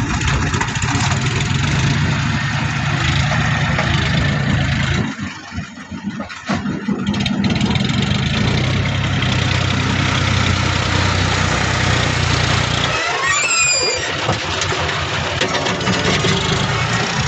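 Tractor engine running under a front loader, steady and loud, dropping away briefly about five seconds in. A short rising whistle-like tone sounds near the end.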